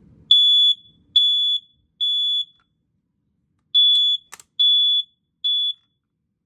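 Smoke alarm horn sounding its test alarm in the temporal-three pattern: two groups of three short high-pitched beeps with a pause between them. A sharp click comes during the second group, and its last beep is cut short.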